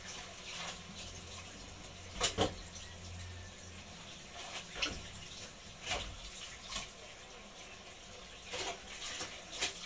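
Water splashing and sloshing in a pail as someone washes by hand at a low tap: about half a dozen irregular splashes, the loudest about two seconds in, over a low running-water background.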